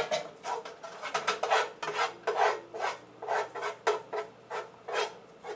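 A utensil scraping sticky sauce and chicken out of a pan, in quick repeated rasping strokes, about three a second.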